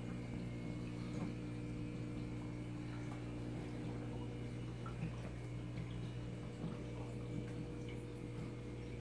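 Steady low hum of running aquarium equipment, with faint scattered water ticks and drips.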